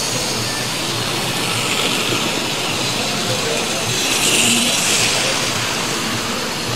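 Tri-ang TT gauge model train running on the layout's track, growing louder as it passes close by about four to five seconds in, against a steady background noise.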